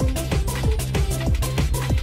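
Electronic background music with a steady drum beat and bass line.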